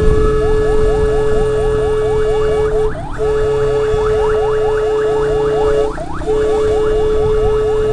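Emergency vehicle siren sounding in a fast yelp of rising sweeps, about five a second, over a loud steady tone, cutting out briefly twice, with engine and road rumble beneath.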